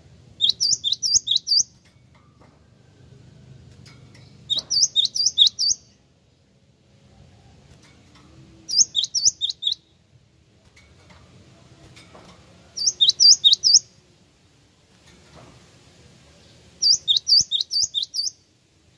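Cinereous tit (gelatik wingko) singing: five short phrases, one about every four seconds, each a quick run of five to seven sharp, high repeated notes.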